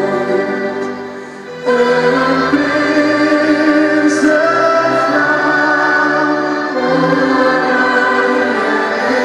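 Live music with a choir singing sustained chords and a singer on a microphone, heard over a stadium PA. The music drops away about a second in, then comes back in full just before two seconds.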